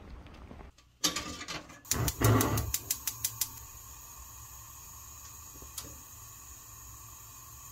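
A gas stove burner being lit: a quick run of sharp igniter clicks, about six a second, with a low whoosh as the flame catches, then a steady faint hiss.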